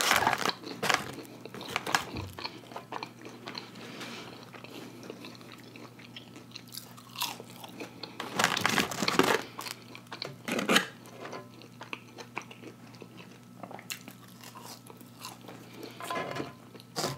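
Close-miked chewing and crunching of fried food, mostly crinkle-cut french fries, in short crunchy bites with quieter chewing between. The loudest run of crunching comes about eight to nine seconds in.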